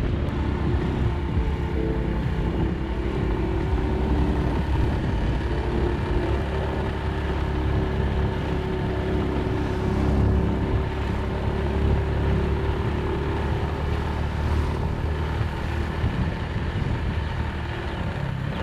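Motorbike engine running steadily while riding, over a dense low rumble.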